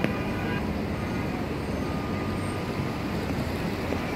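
Steady city street traffic noise: a low rumble of cars and buses running through an intersection, with a short click and a brief high tone in the first half second.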